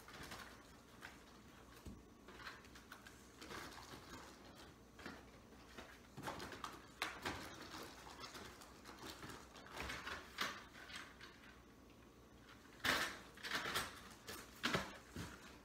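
Goods being packed into a cardboard box: irregular rustling and light knocks of items against the cardboard, louder for a couple of seconds near the end.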